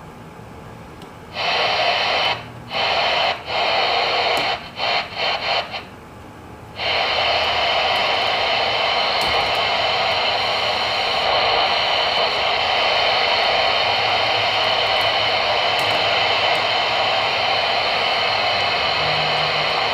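Static hiss from a Voyage CB radio's speaker on the AM band, with no station on the channel. It cuts in and out several times over the first seven seconds while the radio's knobs are turned, then runs steadily.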